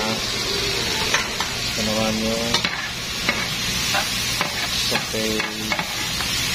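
Diced carrots and onion sizzling in oil in a frying pan, stirred with a spatula whose strokes click and scrape against the pan.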